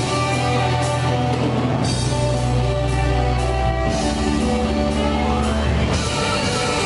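Live rock band playing: electric guitar, bass guitar and drums with a saxophone over them, one note sliding upward about five seconds in.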